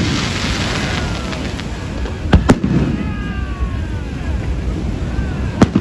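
Fireworks bursting overhead: two sharp bangs in quick succession about two and a half seconds in, and another near the end, over steady background noise.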